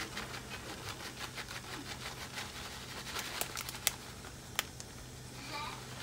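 Plastic bag crinkling in the hand, with a fast run of light ticks as pinches of topping are sprinkled onto the lasagna. This thins out after about four seconds into a few sharper single clicks.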